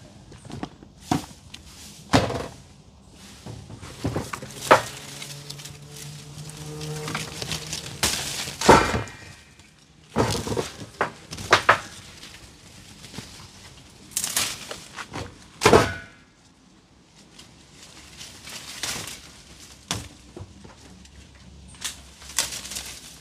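Irregular knocks and snaps of ackee branches and pods being handled and picked from the tree, some sharp and loud.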